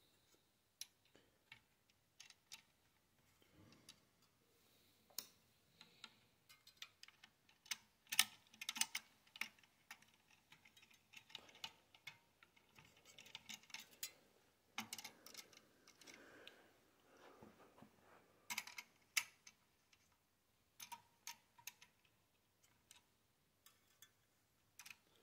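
Faint, irregular metallic clicks and taps, some in quick clusters, from a Thermaltake Toughair 110 tower CPU cooler being seated on its mounting bracket while a screwdriver works at its mounting screws.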